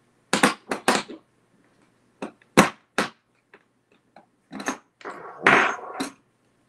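Sharp clicks and knocks of chrome sockets being handled in a plastic tool case, as a 10 mm socket is pulled off its rail, with a longer rattle near the end.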